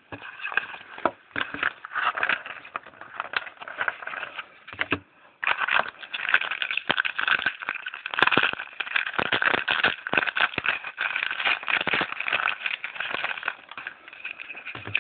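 Crinkling and tearing of a foil trading-card pack wrapper: a dense run of crackles, with a short lull about five seconds in and heavier crinkling after it.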